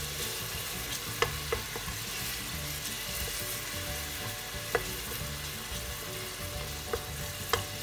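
Chopped onion, garlic and tomato paste sizzling in hot olive oil in a stainless steel pressure cooker pot, as a wooden spoon stirs and mashes them. Now and then there is a sharp click of the spoon against the pot.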